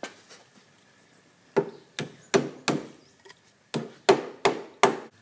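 Hammer blows on a thin metal rod clamped in a bench vise, bending it over the jaw: eight sharp strikes in two runs of four, about three a second.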